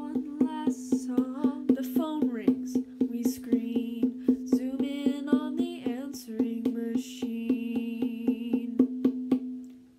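A strummed string instrument plays a steady chord rhythm of about four strokes a second, with a voice singing over it in several stretches. The music fades out near the end.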